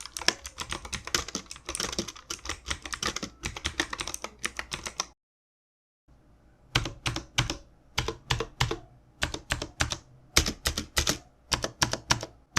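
Typing on a MOTOSPEED Inflictor CK104 mechanical keyboard with clicky blue Optimal switches (Cherry MX clones) and PBT double-shot keycaps: a fast run of crisp click-clack keystrokes, a second of dead silence about five seconds in, then slower, separate key presses and short bursts of typing.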